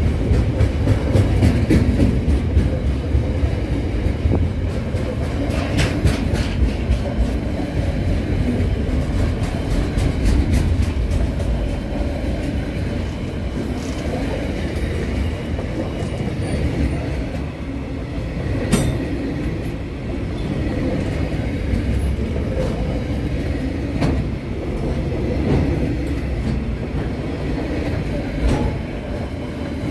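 Container wagons of a KiwiRail freight train rolling past close by: a steady low rumble of wheels on rail, with clicks and clanks over the rail joints now and then, the sharpest about 19 seconds in.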